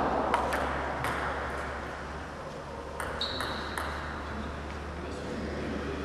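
Irregular clicks of table tennis balls striking tables and bats in a sports hall, a handful of sharp taps spread across the few seconds.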